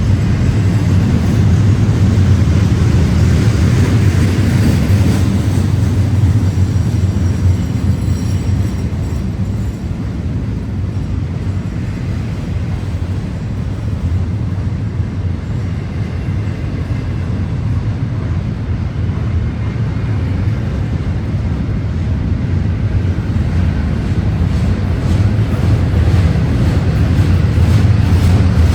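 Union Pacific freight train rolling past: a steady low rumble of wheels and cars, dipping slightly in the middle and building again near the end.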